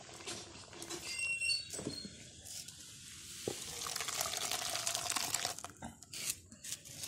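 Hot, thick gongura-leaf curry poured from a metal wok into a pot, a gushing splash of liquid lasting a couple of seconds. Before it come a few clanks of metal with a brief ring as the wok is lifted off the fire.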